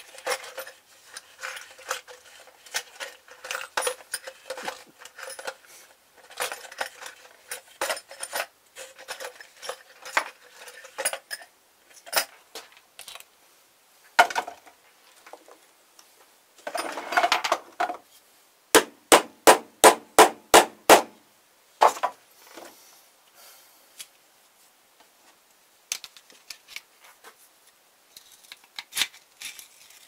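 Small metal hardware and hand tools clinking and rattling as they are handled on a workbench, with a scrape, then a run of about eight sharp, evenly spaced knocks a little past the middle.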